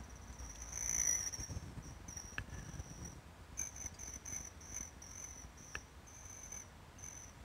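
Insects trilling outdoors: a faint, high-pitched, cricket-like trill repeating in short pulses about twice a second.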